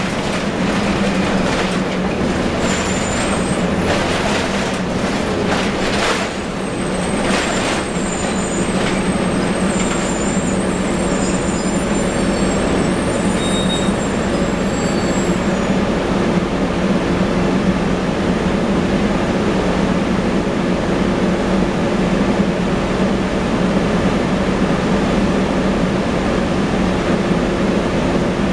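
Cabin noise inside a 1998 Nova Bus RTS-06 diesel city bus: a steady low engine hum over a broad road-and-engine noise. There are knocks and rattles through the first several seconds, and a faint high squeal from about 3 to 15 seconds in.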